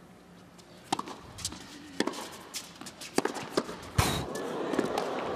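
Tennis ball struck by rackets in a doubles rally: a serve about a second in, then sharp hits roughly a second apart, the loudest about four seconds in. Crowd noise swells near the end.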